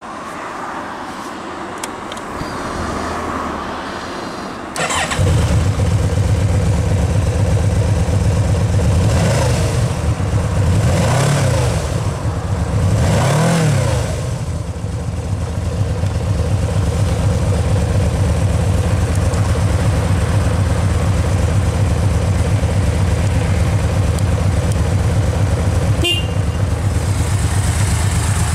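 Yamaha VMAX V4 engine with its stock exhaust catching about five seconds in and settling to idle. It is blipped three times, revving up and dropping back each time, between about 9 and 14 seconds, then idles steadily.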